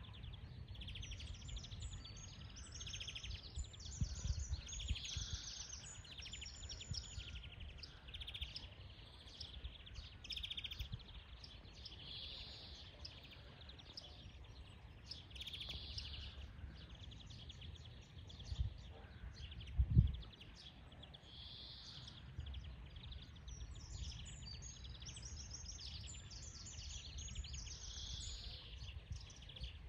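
European greenfinch singing: repeated phrases of twittering trills and drawn-out buzzy notes, over a low background rumble. A single low thump about two-thirds of the way through.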